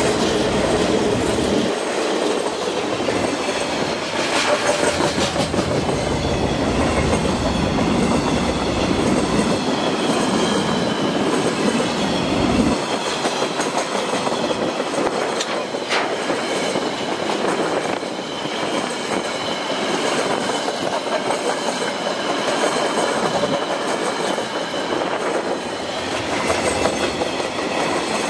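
KiwiRail freight train's wagons rolling past close by: a steady, loud rumble of steel wheels on the rails with clattering over the rail joints.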